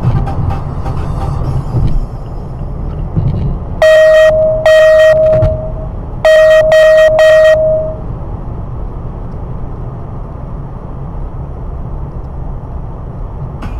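Car horn honking loudly: two blasts, then about two seconds later three quick short ones, over the steady rumble of a car driving on the road.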